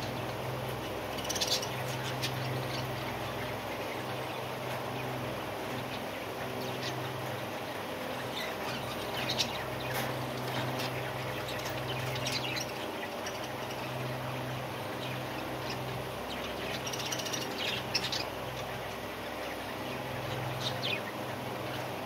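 Budgerigars in an aviary chirping, with short high chirps coming in scattered clusters over a low steady hum.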